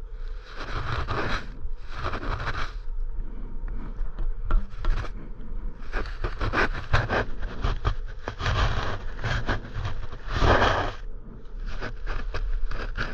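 ODI rubber handlebar grips being twisted and shoved onto the handlebar, scraping in repeated bursts of about a second each, several times over.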